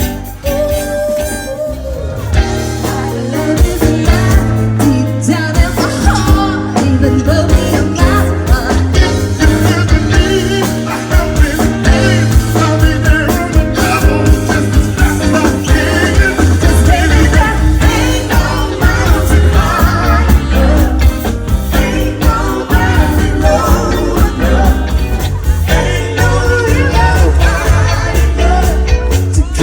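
Live band playing a Motown-style song with a singer, a steady beat and strong bass.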